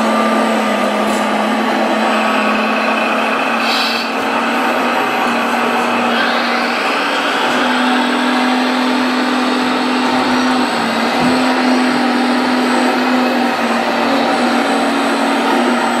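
1/14-scale RC Komatsu D65 bulldozer working: the engine sound from its sound module hums steadily, its pitch stepping up and down under load, over the whirring whine of the electric drive motors and gearboxes. A whine rises about six seconds in.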